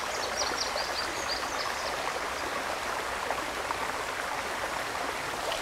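Creek water running steadily, a constant rushing. In the first two seconds a rapid series of short high chirps, about four or five a second, sounds over it.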